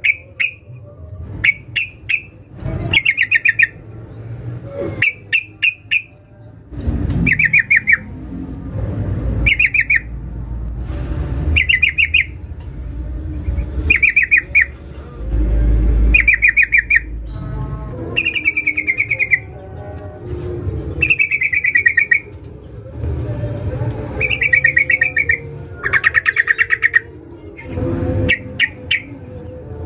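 Yellow-vented bulbul (trucukan) giving a female's call to draw males: short bursts of rapid chattering notes, about one every second or two, some sliding down in pitch in the second half, over a low background rumble.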